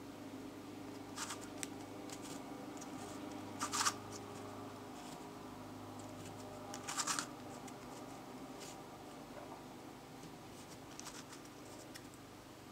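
Plastic Gyrobifastigium twisty puzzle being turned by hand: scattered light clicks and scrapes of its pieces sliding past each other, with two louder clacks about four and seven seconds in.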